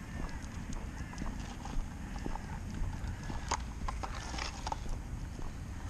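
Footsteps on a wet tarmac path with irregular light clicks and scuffs, over a low rumble of wind and handling noise on the microphone.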